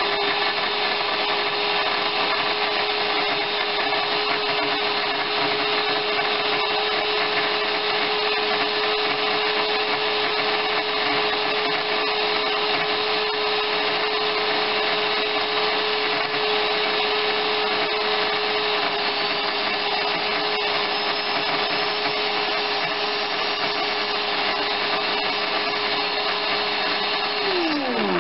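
Countertop electric blender running at a steady speed, blending egg yolks, with a constant motor whine; near the end it switches off and the whine falls away as the motor spins down.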